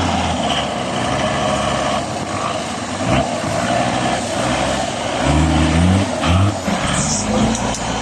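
An off-road 4x4's engine running hard, revving up and down several times about five to six seconds in, with a few knocks from the vehicle working over rough ground.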